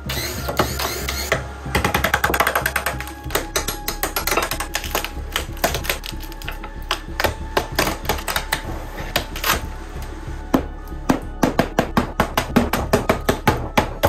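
Background music with a quick percussive beat.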